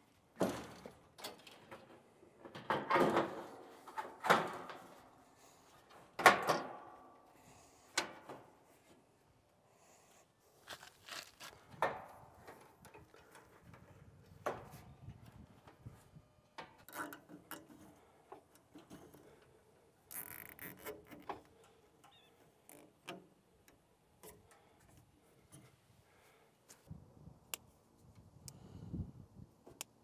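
Scattered knocks, clicks and rattles of sheet-metal panels, parts and tools being handled on an outdoor air-conditioning condenser unit during a fan-motor swap, the loudest knocks in the first several seconds.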